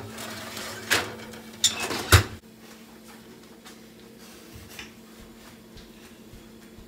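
Oven door and tray being handled: a few knocks and a sharp clunk about two seconds in, then only a faint steady hum.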